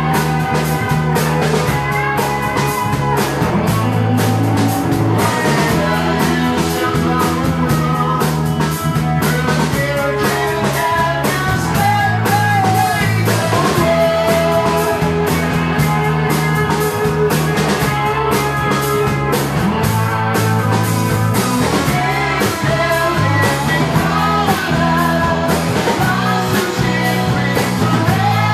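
Live rock band playing a song: electric guitar and drum kit with a male singer over a steady beat.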